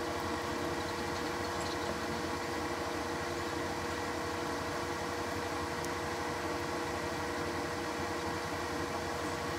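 Steady mechanical hum with several unchanging tones, from a running machine such as a fan or air conditioner, with a few faint ticks.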